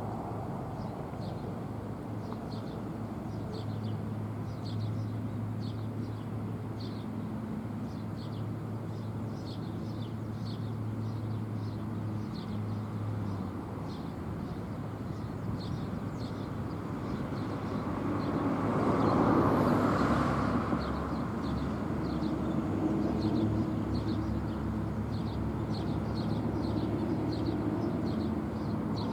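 Roadside traffic noise, with a vehicle passing and swelling loudest about 19 to 21 seconds in. High chirps repeat about twice a second over it.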